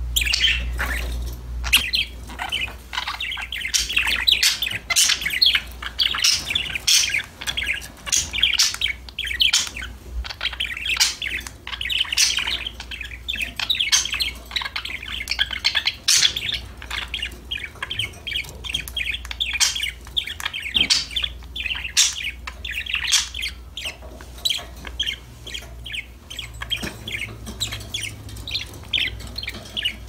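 Two budgerigars chattering and warbling: a dense, continuous stream of rapid high chirps and squeaks.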